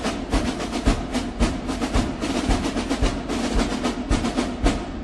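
Marching-style drum music: rapid, evenly spaced snare drum strokes and rolls over a steady bass drum beat.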